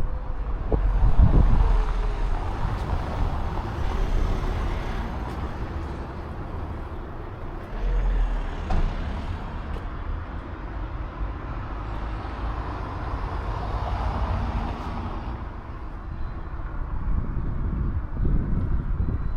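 A motor vehicle running close by on the street, its engine and road noise rising and falling.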